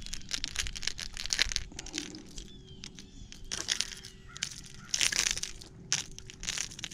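A new fishing reel being cranked, giving off an annoying rapid clicking in bursts.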